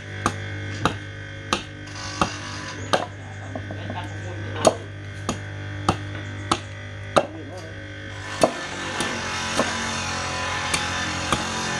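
Machete blade chopping into the side of a short log on a wooden block, striking about one and a half times a second in a steady rhythm, chipping off bark and wood. A steady low hum runs underneath.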